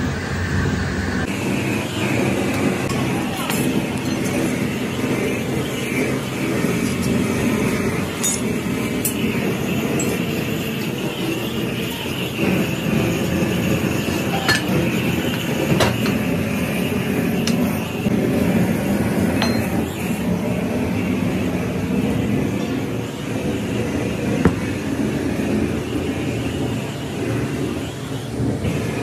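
Steady machinery rumble of a working sand-casting foundry, with a few sharp metal clinks and knocks from hand tools as moulding sand is rammed into flasks.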